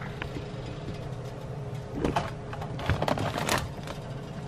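Rubbing and light knocking from the camera being handled and set down on the kitchen counter, a cluster of clatters about halfway through, over a steady low hum.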